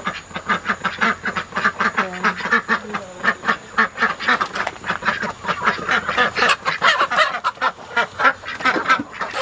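A flock of domestic ducks quacking over and over in quick succession, with many calls overlapping.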